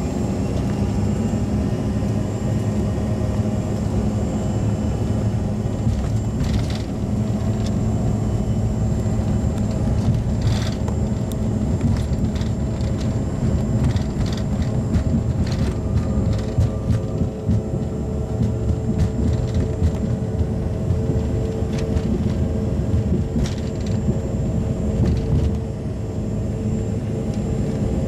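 Cabin noise of a Bombardier CRJ regional jet moving along the runway: the steady low rumble of its rear-mounted turbofan engines and rolling wheels, with a faint high whine and scattered knocks and rattles.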